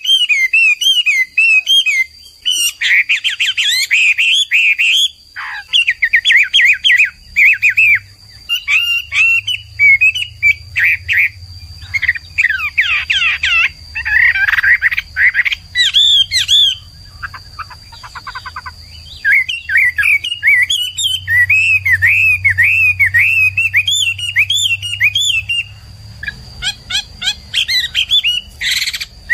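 Chinese hwamei (Garrulax canorus) singing a long, loud, varied song of rapid whistled phrases. Each note is repeated several times before the bird switches to another, with short pauses between series.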